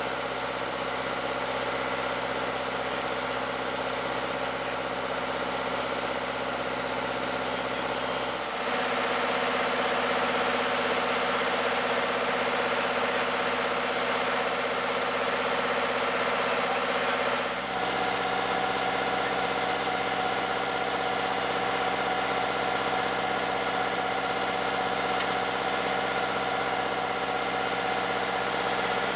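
Steady engine hum with several held tones, shifting slightly in pitch and level twice, about 8½ and 17½ seconds in.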